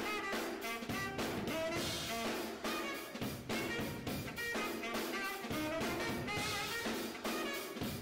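A saxophone and drum kit playing jazz: a saxophone melody over steady drum and cymbal strokes.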